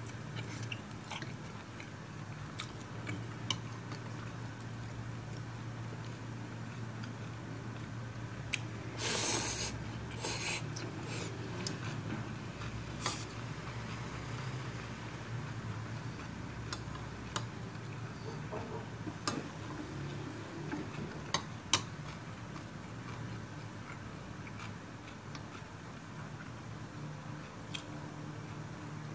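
Close-up eating sounds: chopsticks clicking against a ceramic bowl and someone chewing a mouthful of rice noodles, over a steady low hum. A brief louder noisy burst comes about nine seconds in.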